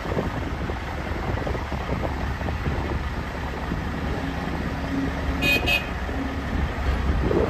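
Heavy diesel equipment running at an excavation site: a steady low engine rumble, with wind on the microphone. A lower hum comes in from about four to six seconds, and a brief high-pitched toot sounds about five and a half seconds in.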